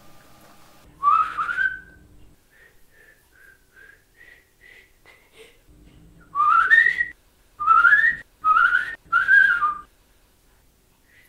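A young girl whistling through pursed lips: a rising whistled phrase about a second in, a few soft short notes, then four louder rising phrases one after another.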